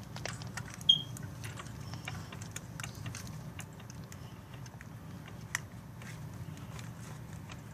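Scattered light clicks and taps of small hard parts being handled, over a steady low hum. About a second in there is one short, sharp high-pitched ping, the loudest sound.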